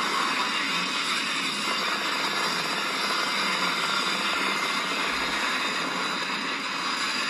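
A film soundtrack playing through laptop speakers: a steady rushing noise, thin and without bass, with no clear separate bangs.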